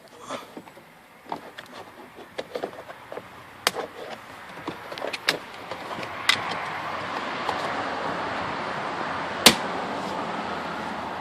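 Car door interior trim panel being worked loose by hand: scattered plastic clicks and knocks, then a steady rubbing noise from about six seconds in, with one sharp snap about nine and a half seconds in.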